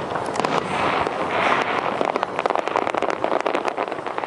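Fireworks display: aerial shells bursting in a dense, continuous run of rapid crackling pops, thickest in the second half.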